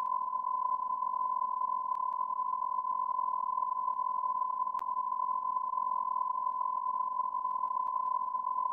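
A continuous electronic beep tone holding one unchanging pitch, with a couple of faint clicks, the clearest about five seconds in.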